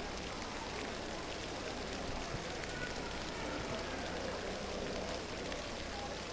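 Steady, even rain-like hiss of water, typical of a diving pool's surface sprayers, with the hall otherwise hushed.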